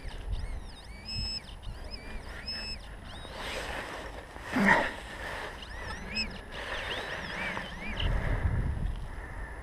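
Digging by hand in a forest floor of dry beech leaves: leaves and loose soil rustle and scrape under gloved hands and a small shovel, with one loud thump about halfway through. High chirping sounds come and go over it.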